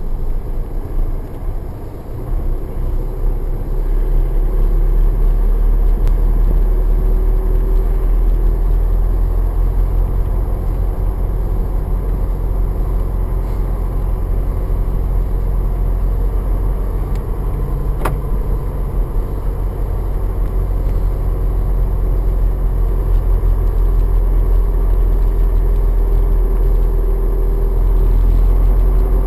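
Car driving on a paved road: a steady low rumble of engine and tyres heard from inside the cabin, building over the first few seconds as the car gets going. A single sharp click sounds about halfway.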